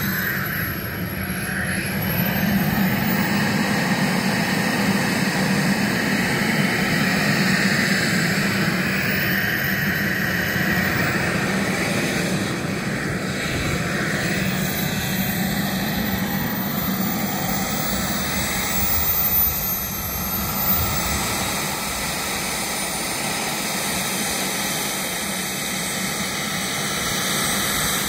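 Two KingTech K-85 model jet turbines running as the model A-10 Warthog taxis: a steady rushing jet noise with a very high whine that dips and rises in pitch a few times.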